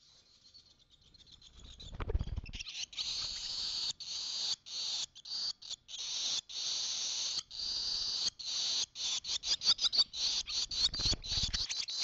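Male barn swallow singing hard at close range on the nest: long runs of high twittering warble with short breaks, turning into a rapid clicking stutter near the end. A low flutter of wingbeats comes about two seconds in as it lands, and another shortly before the end.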